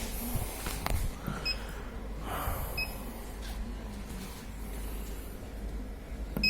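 Two short electronic beeps about a second apart from the laser cutter's Ruida control panel as its keys are pressed, over a steady low electrical hum, with a few light clicks.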